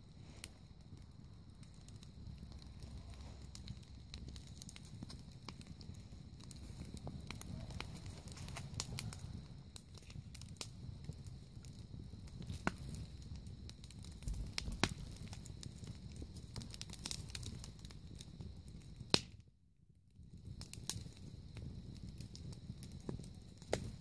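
Wood fire burning in a stone fire pit, crackling with scattered sharp pops over a steady low rumble. A loud pop about two-thirds of the way through is followed by a brief dropout of about a second before the crackling resumes.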